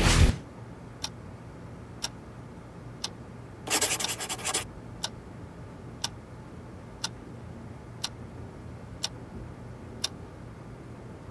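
A clock ticking steadily, once a second, over a faint low hum. About four seconds in comes a scratchy noise lasting just under a second.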